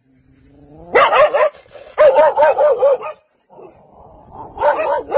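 A dog barking in runs: a rising whine about a second in breaks into a quick run of barks, then a string of about five evenly spaced barks, and more barks near the end.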